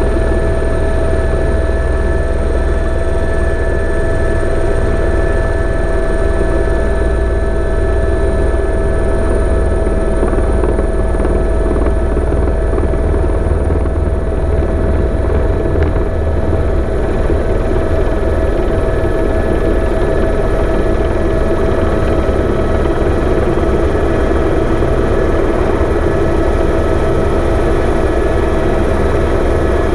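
Helicopter engine and rotor running steadily in flight, heard close up from the aircraft itself: a loud, deep rotor rumble with a steady whine of several tones on top.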